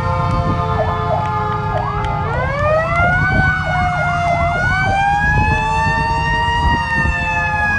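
Several emergency-vehicle sirens sounding together. One yelps, sweeping up and down about three times a second, while a slower wail rises about two seconds in and then holds, over steady siren tones and a low vehicle rumble.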